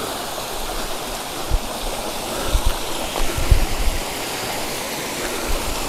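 Small rocky jungle stream running and splashing over boulders: a steady hiss of water, with a few short low thumps around the middle.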